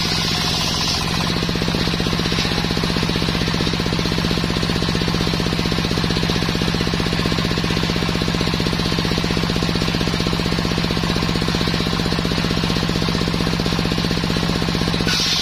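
Engine-driven circular saw of a small log sawmill. The blade cuts through a sengon log until about a second in, then spins free while the engine keeps running steadily with a rapid, even pulsing. The high cutting hiss comes back just at the end as the blade enters wood again.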